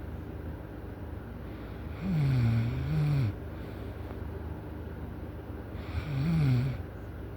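Loud snoring: two long snores, one on each breath about four seconds apart, each with a pitch that dips and rises.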